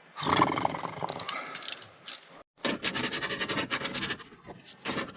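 A ratchet with a 10 mm socket clicking in a fast, even run, with metal rattling and scraping before it, as the window regulator's bolts are backed out inside the door.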